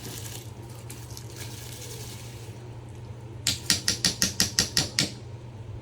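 Rice going into a pot of boiling water, with a steady hiss of bubbling and pouring. A little over three seconds in there is a quick run of about ten sharp knocks, at roughly six a second.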